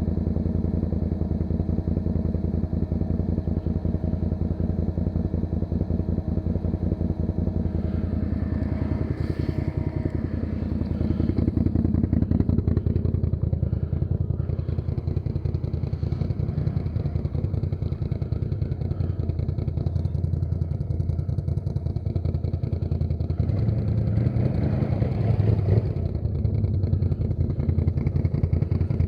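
ATV engine running while riding, a steady drone whose pitch and loudness rise and fall twice as the throttle is opened and eased.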